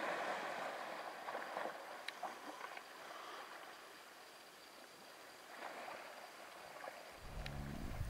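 Faint splashing and sloshing of water as African elephants swim and wade in a dam. The noise is strongest at the start and swells again about six seconds in.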